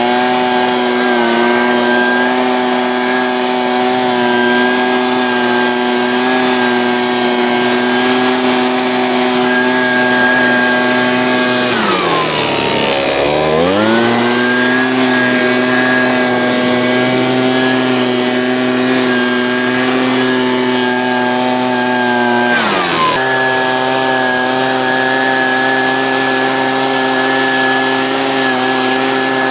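Husqvarna 125B handheld two-stroke leaf blower running steadily at high throttle while blowing debris off a roof and gutters. About halfway through, the throttle is let off and the engine note sinks toward idle before revving back up, and it dips again briefly about two-thirds of the way through.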